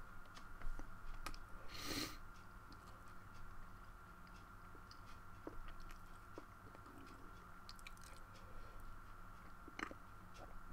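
Faint scattered clicks and taps, with one short crunchy rustle about two seconds in, over a steady electrical hum.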